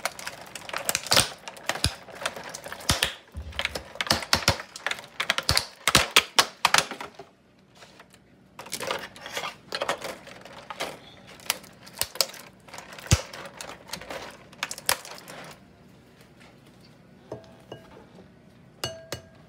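Clear plastic clamshell egg carton crackling and clicking as it is pried open and an egg is pulled out. Near the end come a few sharper taps with a short ringing tone, the egg being cracked on the rim of a ceramic mixing bowl.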